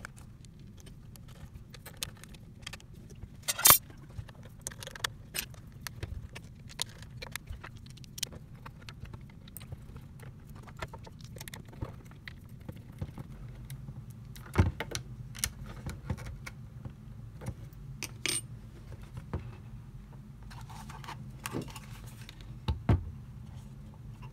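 Hands assembling 3D-printed plastic parts with small metal screws and a hex key: scattered clicks, taps and light metallic clinks, the sharpest a ringing clink about four seconds in, over a steady low hum.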